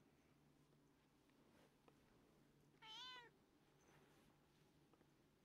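A cat meows once, a short high meow about three seconds in.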